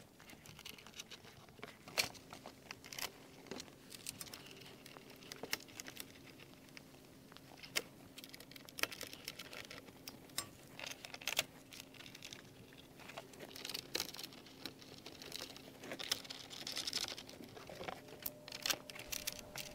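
Irregular light clicks, taps and rustles of small hardware being handled: bolts, fender washers and nuts being fitted finger-tight through a plastic bandwheel shield, with the plastic shield knocking and scraping as it is moved.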